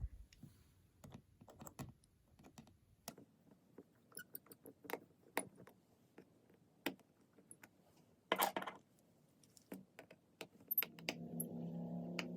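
Small, irregular clicks and taps of a precision screwdriver and small metal tools working the tiny internal screws of an opened iPhone XS Max, with a brief louder rattle about eight seconds in. A low steady hum comes in near the end.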